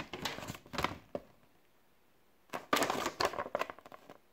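Paper leaflet rustling and crackling as it is handled, flipped over and unfolded, in two spells with a short silent pause between.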